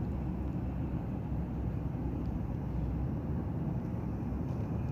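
Mobile crane's diesel engine running steadily with a low rumble while it lowers a heavy gate valve on its hook.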